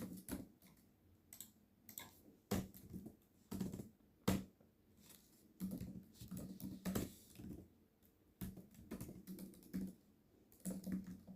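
Typing on a computer keyboard in short, irregular bursts of keystrokes with brief pauses between them.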